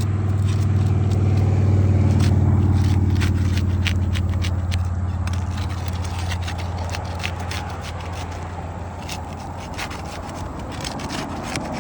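Scraping and sharp clicks of a tool working roofing nails loose from under asphalt 3-tab shingles. A low vehicle hum swells and fades over the first few seconds.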